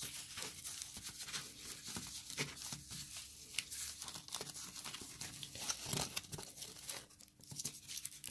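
Thin polyethylene foam packing sleeve rustling and crinkling as hands pull it open and unwrap it, a run of irregular crackles that thins out near the end.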